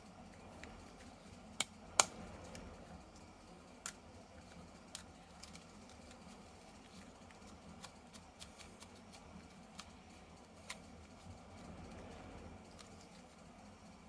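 Faint scattered clicks and taps of plastic toys and packaging being handled, irregular, with the sharpest knocks about one and a half and two seconds in.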